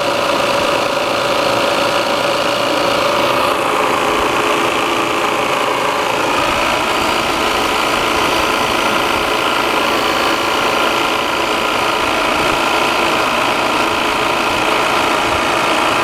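Refrigerant recovery machine running steadily, its compressor and fan pumping refrigerant out of an air conditioner into a recovery tank.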